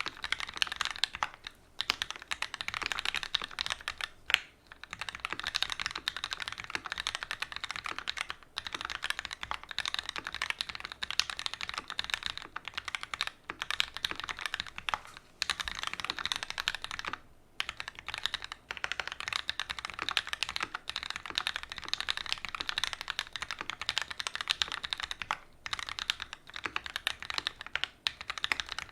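Fast, continuous typing on an OTD 360 Corsa custom mechanical keyboard with Gateron Ink Black linear switches, an aluminium plate and GMK doubleshot ABS keycaps. Rapid keystrokes run with brief pauses every few seconds.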